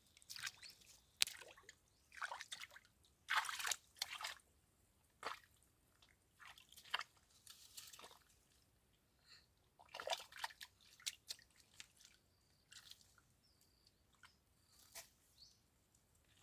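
Irregular scratching, crackling and wet clicking sounds, with a few faint high chirps in the second half.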